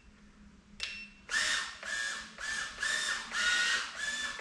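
Emax Tinyhawk Lite tiny whoop drone's motors whirring in short bursts about twice a second, starting after a second of near silence and a click. This is flip over after crash (turtle mode) trying to turn the upside-down drone over, and it stays stuck.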